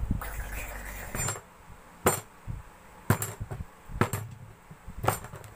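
Kitchen knife chopping ears of corn into pieces on a table: a series of sharp knocks roughly once a second, five or six in all.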